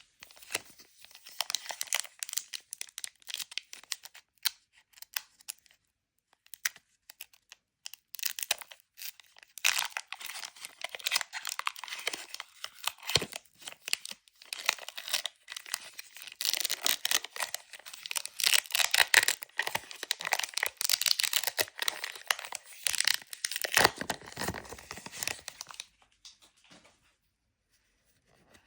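Foil wrapper of a Pokémon booster pack being torn open and crinkled by hand: irregular bursts of tearing and crackling that grow busier about a third of the way in, then fade out near the end.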